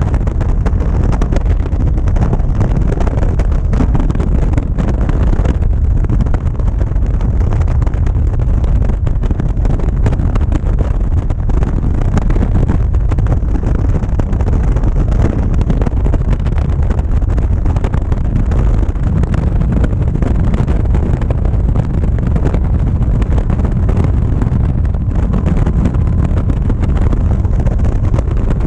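Caterham Seven race car's engine running hard at racing speed, heard onboard, with heavy wind buffeting on the open-cockpit microphone.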